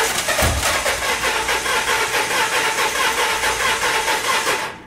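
Starter motor cranking a car engine over with a regular pulsing rhythm, stopping abruptly near the end. The starter current recorded during this crank shows compression strokes that are not all alike, a sign of a cylinder low on compression.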